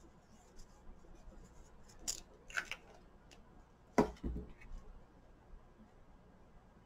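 Paper and card stock being handled on a craft mat: a couple of brief rustling scrapes, then a sharp tap about four seconds in as a card is pressed down on the table, followed by a few faint taps.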